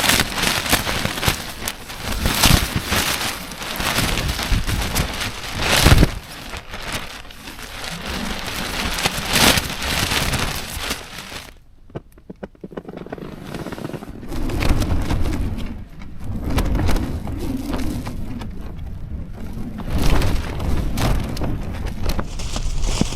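Heavy rain and gusting wind battering a Durston X-Dome 1+ tent, the rain pattering hard on the fabric in waves. There is a brief lull about halfway through.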